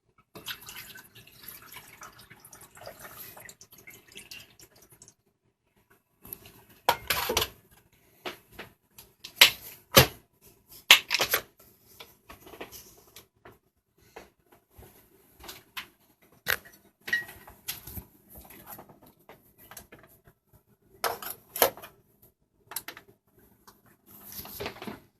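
Handling clatter of single-cup pod coffee makers being set up: sharp plastic clicks and knocks from lids, pods and cups, irregular, with a few louder knocks, after a stretch of softer hissy rustling at the start.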